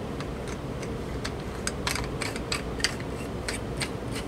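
Irregular light clicks and ticks of hard plastic: a Stromberg-Carlson telephone handset being handled while its threaded mouthpiece cap is screwed back on over the carbon microphone. The clicks come thickest in the second half.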